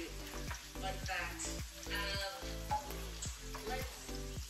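Ricotta meatballs frying in hot oil in a pan: steady sizzling with frequent sharp pops of spattering grease.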